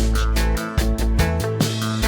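Background music: an upbeat band track with guitar, bass and a steady drum beat.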